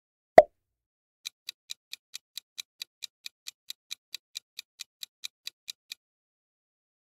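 Countdown-timer sound effect: a steady clock-like ticking, about four to five ticks a second for roughly five seconds. It is preceded about half a second in by a single short blip that falls in pitch.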